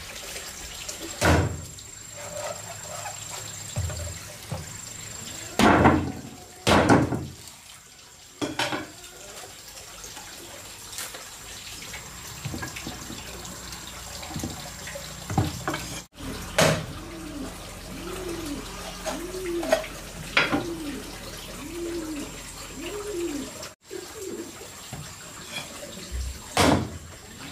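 Water running in the background, broken by several sharp knocks. Midway, a short call repeats about seven times, a little under a second apart.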